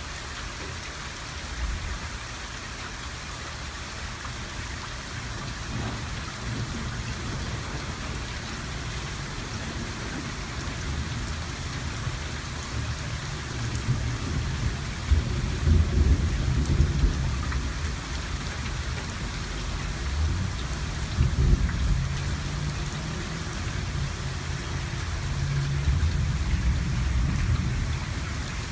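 Steady rain falling, with thunder rumbling low several times, loudest about halfway through and again near the end.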